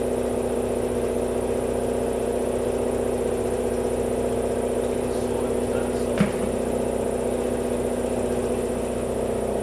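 Workshop air compressor running with a steady drone and hum. There is one short knock about six seconds in.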